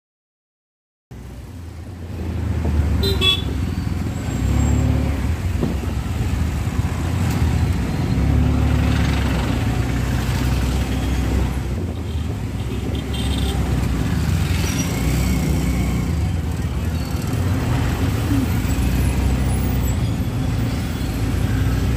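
Heavy steady engine rumble and road noise of riding in an auto-rickshaw through city traffic, starting suddenly about a second in, with vehicle horns tooting now and then.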